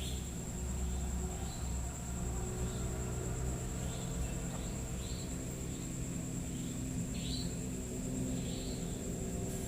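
Night insects: a steady high trill with short chirps repeating every second or so, over a steady low drone.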